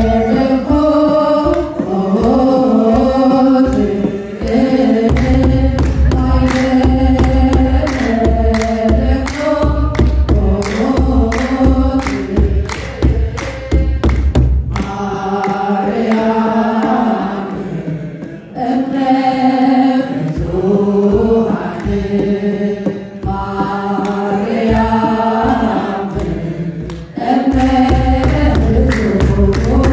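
A woman sings a Yaredawi chant-style Ethiopian Orthodox hymn (mezmur) through a microphone in long, ornamented melismatic phrases. A quick run of sharp rhythmic strikes accompanies her, thickest through the first half and returning near the end.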